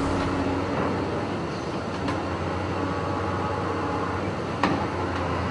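Construction machinery running steadily with a low engine hum. Two short, sharp knocks come through, a faint one about two seconds in and a louder one about four and a half seconds in.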